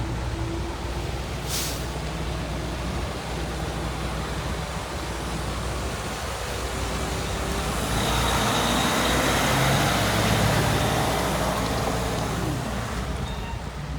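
Heavy diesel machinery running steadily, with a sharp click about a second and a half in. About eight seconds in it grows louder, with a rushing noise and a faint high whine over the engine, easing off again near the end.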